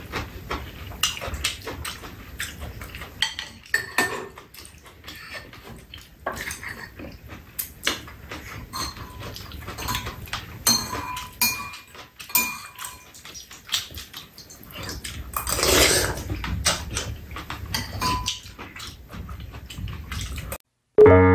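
Metal spoons clicking and scraping against ceramic bowls as two people eat soup and side dishes, with slurping and chewing mouth sounds between the clinks. A longer, louder noisy stretch comes about sixteen seconds in.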